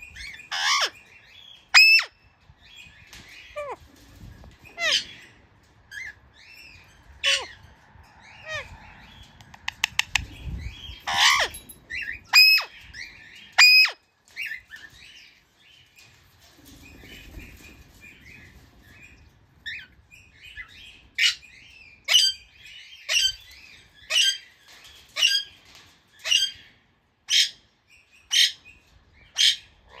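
Alexandrine parakeet giving loud, separate squawking calls, scattered at first, then in the last third a steady run of calls about one a second. Fainter chirps sound in between.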